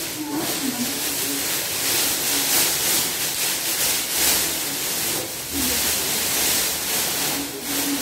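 Large sheet of clear plastic wrapping rustling and crinkling continuously as it is pulled off a refrigerator.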